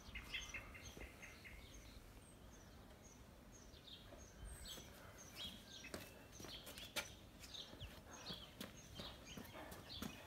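Faint birdsong: short high chirps repeated every half second or so. In the second half a few sharp footsteps on a brick path.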